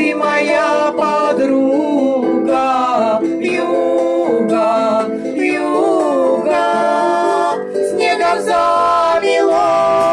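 A song: a voice singing a melody over plucked-string accompaniment, ending on a long held note.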